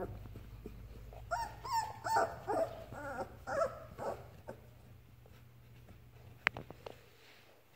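Young Labrador puppy whimpering: a string of short, high-pitched whines with wavering pitch over about three seconds. A single sharp click follows near the end.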